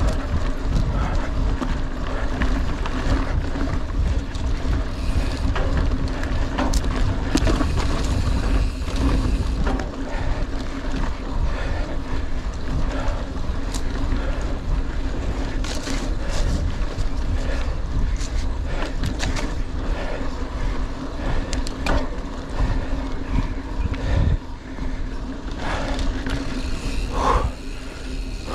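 Mountain bike ridden fast over rough trail: wind rushing over the microphone and tyre rumble, with frequent knocks and rattles from the bike over bumps.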